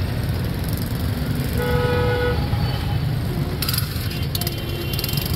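Busy street traffic with a constant low rumble of engines, and a vehicle horn honking for under a second near the middle. A fainter second horn-like tone sounds later.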